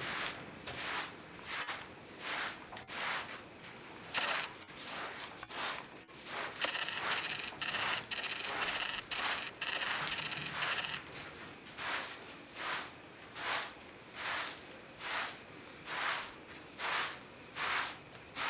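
Short handheld straw broom sweeping a knotted pile carpet, a run of swishing strokes that settle into a steady rhythm of about one stroke every three-quarters of a second.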